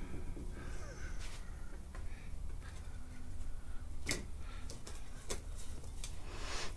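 A few light clicks and knocks, the sharpest about four seconds in, and a short rustle near the end: a rope and a flywheel being handled as a hanging weight on a torque wrench fitted to the engine's crankshaft pulley bolt.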